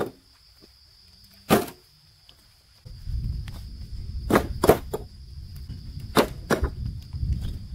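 Sharp knocks, about five, two of them in quick pairs, with a low rumble starting about three seconds in and a steady high buzz of insects.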